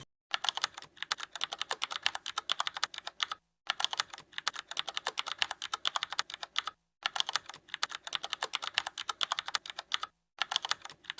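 Rapid keyboard-typing clicks in four runs, each broken off abruptly by a brief moment of dead silence.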